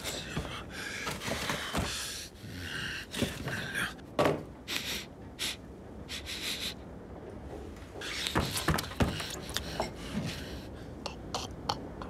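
Cartoon sound effects of a bear character rummaging through a cupboard and a room: short knocks and rustles of objects being handled, mixed with his breathing and snorting sounds.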